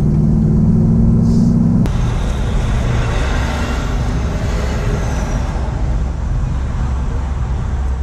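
Truck cab noise while driving: a steady low engine hum that cuts off abruptly about two seconds in, then a continuous low rumble and hiss of road and wind noise heard from inside the cab.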